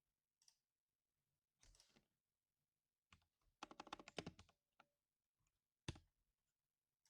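Faint typing on a mechanical keyboard with Cherry MX Silver Speed switches: a few scattered keystrokes, a fast flurry of clacks about three and a half seconds in, then a single sharp keypress near six seconds.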